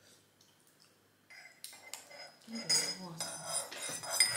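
Cutlery and dishes clinking and clattering, starting about a second in.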